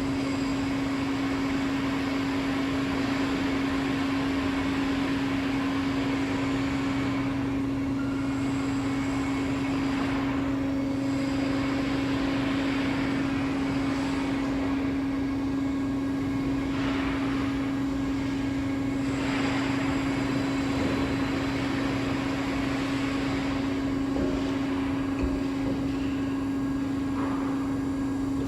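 Rafamet UBC 150 CNC wheel lathe running: a steady hum under a mechanical rushing noise that swells and fades several times in the middle.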